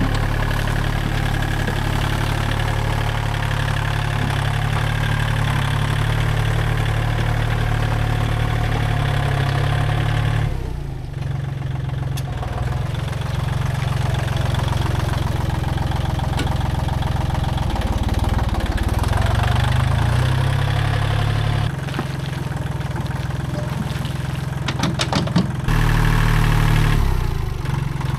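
Kubota L1-18 compact tractor's engine running steadily, its note shifting a few times. Near the end there are a few short knocks.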